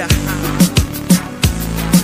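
Instrumental beat of a Christian rap song, with no vocals: deep bass notes and kick drum about twice a second under crisp hi-hats.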